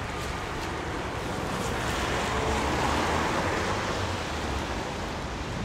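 Street traffic noise: a passing vehicle's tyre noise on the wet road swells to a peak about halfway through, then fades.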